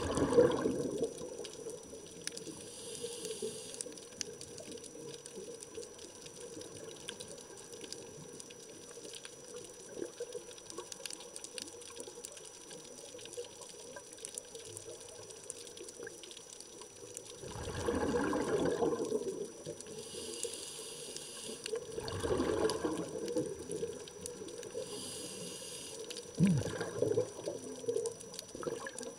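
Underwater sound of a scuba diver's regulator: exhaled bubbles burbling out in bursts, one at the start and three more in the last dozen seconds, over a faint steady crackle.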